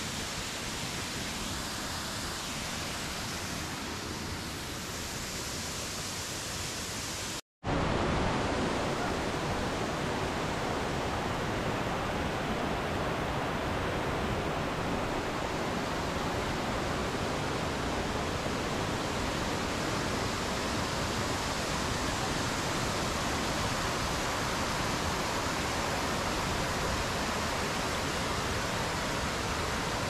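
Waterfall rushing as a steady wash of water noise. It cuts out for an instant about seven seconds in and comes back a little louder.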